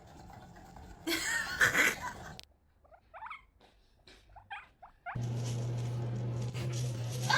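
Hamster sounds: a brief burst of rustling with squeaking, then a few short, faint squeaks. From about five seconds in, a steady low hum under a hiss takes over.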